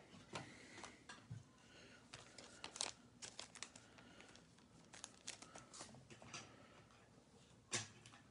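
Faint rustling and crinkling of trading cards and foil pack wrapping being handled, with scattered light clicks and one louder knock near the end.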